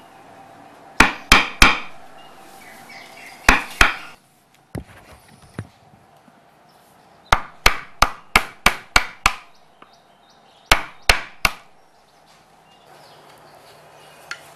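Sharp chopping blows on wood, in short groups of two or three and one quick run of about eight strokes at roughly four a second near the middle.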